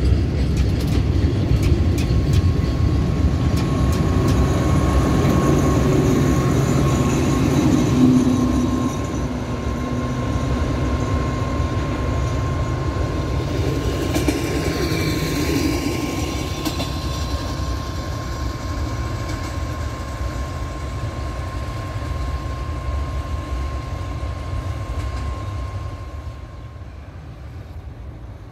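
Freight train of bogie box wagons rolling past close by, its wheels clicking quickly over the rail joints, then a diesel locomotive's steady running as the train moves away and fades. A thin steady whine runs under the rumble until near the end.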